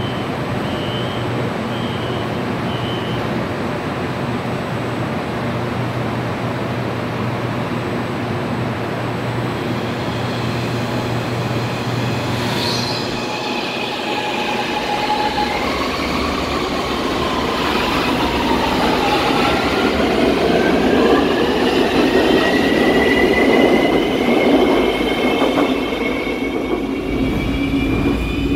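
AMY light-rail train on the Ampang Line pulling away from the station. A steady low hum and three short high beeps come first. From about halfway an electric whine rises steadily in pitch as the train gathers speed, and running noise grows louder beneath it.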